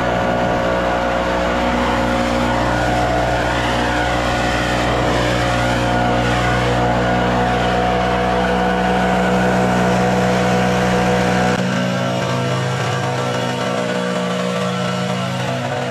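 Gas backpack leaf blower running flat out: a loud, steady engine drone over a rush of air as it blows clippings off a concrete walk. About two-thirds of the way through, the deepest part of the drone drops out while the rest runs on.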